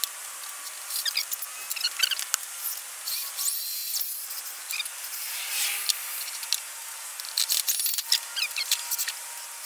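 Scattered short, high chirps of small birds, with light rubbing and knocks as a wooden leg and a corded drill are handled.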